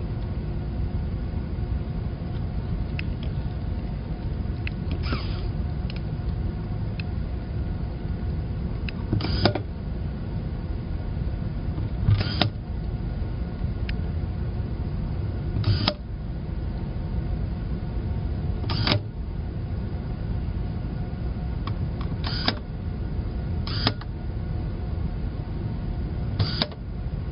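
Steady background hum broken by sharp clicks every few seconds, about seven in all.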